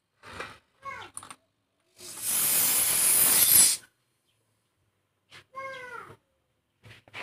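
A loud hiss of escaping compressed air lasting a little under two seconds, from the tyre-inflator hose of a salvaged refrigerator compressor. Before and after it come short squeaky calls that fall in pitch.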